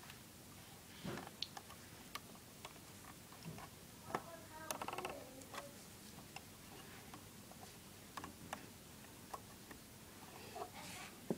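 Faint, scattered small clicks and taps at irregular intervals, with a brief squeaky pitched sound about five seconds in.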